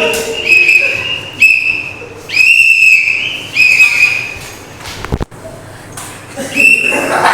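A whistle blown in five short, steady blasts of about half a second each, the first four close together and the last near the end, with a sharp knock just past the middle.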